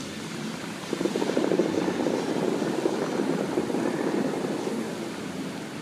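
Bellagio fountain's water jets firing: a sudden loud rush of water and air about a second in, then the rushing of the spray slowly dying away.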